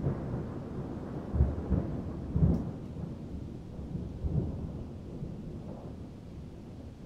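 Thunder following a lightning strike: a low rumble breaks into several loud peals about one and a half to two and a half seconds in, then rolls on more softly and slowly dies away.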